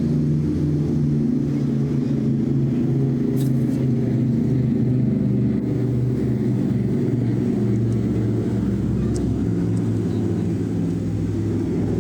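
A steady, loud engine drone: a stack of low tones that holds evenly with only slight shifts in pitch.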